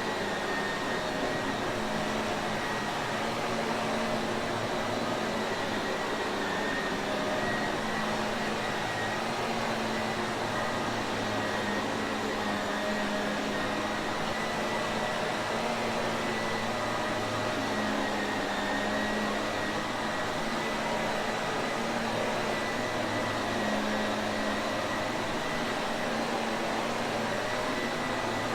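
Shark Navigator vacuum cleaner running steadily: an even rush of air with a low motor hum and a thin high whine, unchanging throughout.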